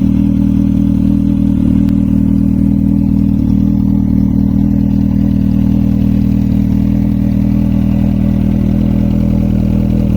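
Freshly rebuilt Yamaha FJ1100 motorcycle's air-cooled inline-four engine idling steadily at an even pitch.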